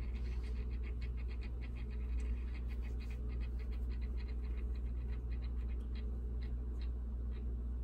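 Small motorized rotating display stand turning, a steady low hum with rapid light ticking that thins out after about five seconds.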